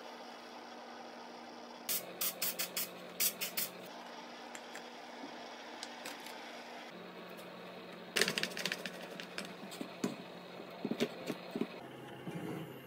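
Sharp clicks and clacks in two quick clusters, about two seconds in and again from about eight seconds in: glued wooden and G10 handle pieces being stacked onto the knife tang, then one-handed bar clamps being ratcheted tight around the handle. A faint steady background with a few held tones runs under them.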